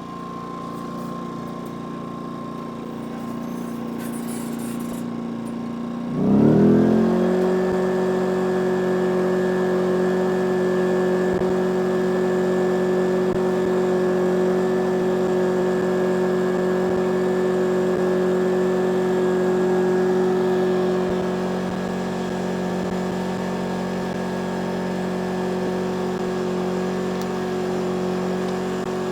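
Yamaha EF2200 inverter generator running at low speed. About six seconds in, its engine speeds up quickly and then holds a steady, higher-pitched hum.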